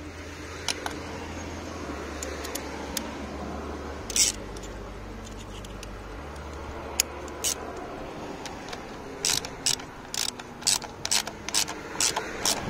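Ratchet wrench clicking as it tightens the bolts of a plastic rocker cover. A few scattered clicks come first, then a quicker run of about three clicks a second near the end.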